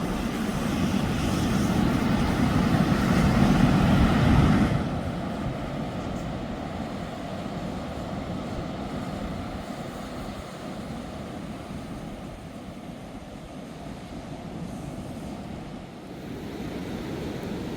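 Outdoor beach noise of surf and wind, with heavy wind rumble on the microphone for the first few seconds that drops off suddenly, leaving a steady, quieter wash.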